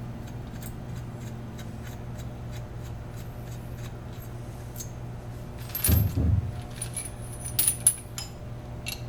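Steel bolts and lock washers clinking as they are taken off a disassembly tool and handled, with a dull thump about six seconds in and a run of sharp metallic clinks near the end, over a steady low hum.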